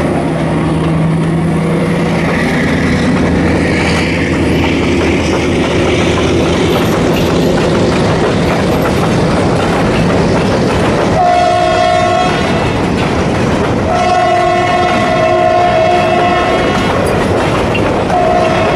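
CRRC Ziyang CDD6A1 diesel-electric locomotive's engine pulling hard, its note rising a few seconds in, then empty hopper wagons rolling past with wheels clattering over the rail joints. A train horn sounds three times in the second half: a short blast, a longer one of about three seconds, and another starting near the end.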